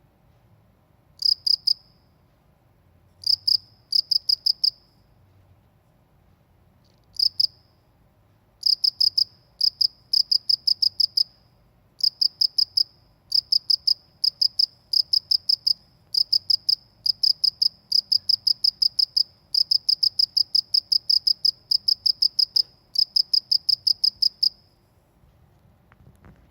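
A cricket chirping at a high pitch, each chirp a quick run of pulses. There are a few scattered chirps at first, then steady chirps about twice a second, which stop a couple of seconds before the end.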